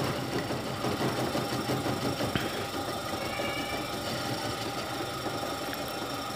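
Metal lathe running steadily, turning a motor's rotor shaft while the cutting tool machines its weld-built bearing seat back down to bearing size.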